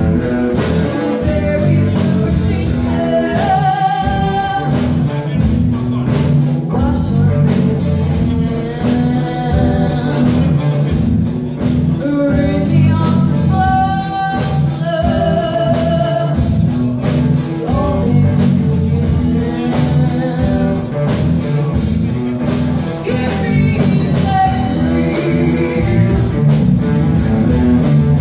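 Live rock band playing, with a woman singing lead over electric guitars, bass guitar and drum kit, the drums keeping a steady beat.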